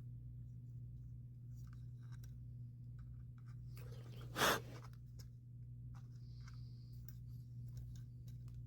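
Faint clicks and scratches of small drone parts and tools being handled, with one louder brief knock about four and a half seconds in, over a steady low hum.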